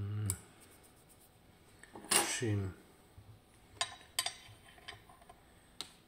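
A few sharp metallic clicks and clinks from a Ruko 500 lock cylinder and its key being handled, two close together past the middle and one near the end.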